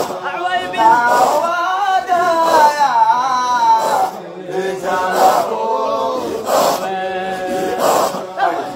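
Male voices chanting a Sufi Qadiriya dhikr to a rising and falling melody, with a group hand clap about every second and a half.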